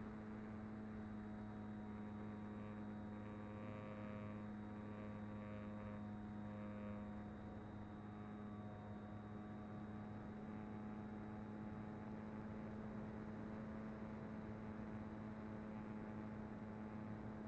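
Mini Talon FPV plane's electric pusher motor and propeller humming steadily in cruise, several held tones with no change in pitch. A few extra higher tones join in from about two and a half to seven seconds in.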